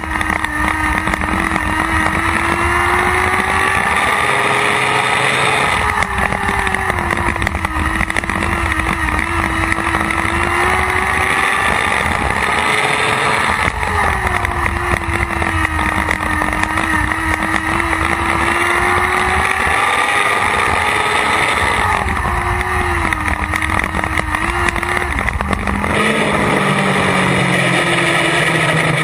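Lightning Sprint race car engine at racing speed, heard from on board with heavy wind noise. Its pitch swells and sags in a repeating cycle of about eight seconds, one cycle per lap as the car runs the straights and turns. About 26 seconds in, the engine falls to a low, steady note as the car slows.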